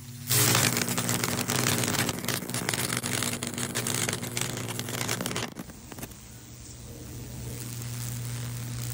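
High-voltage fractal burning on a wet black walnut board: a steady electrical hum, with a loud crackling sizzle of current arcing and burning through the wood starting about a third of a second in. After about five seconds the crackling drops to a softer hiss over the hum.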